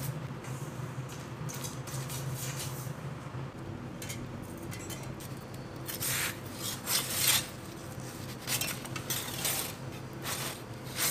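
Perforated metal pizza peel scraping across stone as a calzone is slid onto it and then worked on the oven floor, in a run of short rasping strokes, the loudest a little past the middle. A low steady hum runs underneath.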